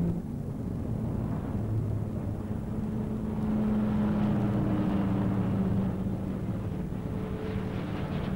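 City bus engine running as the bus drives, a steady low hum that swells a few seconds in and eases off toward the end.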